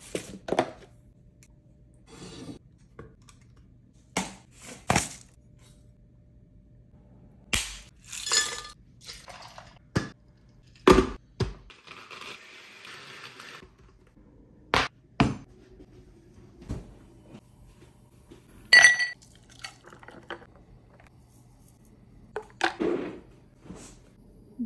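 Kitchen preparation sounds: a series of sharp knocks and clinks of ice cubes and glassware, some ringing briefly, with a blender running for a second or two about halfway through.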